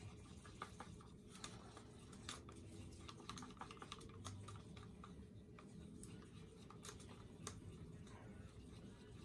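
Wooden popsicle stick stirring acrylic paint and pouring medium in a paper cup, faintly and irregularly ticking and scraping against the cup's sides and bottom.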